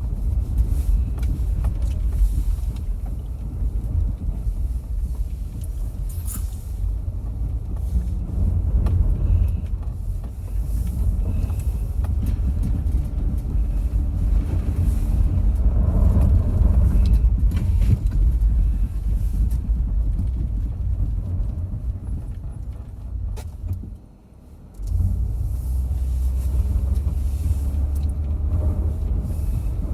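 Car running, a steady low rumble that dips sharply for about a second about three-quarters of the way through, then resumes.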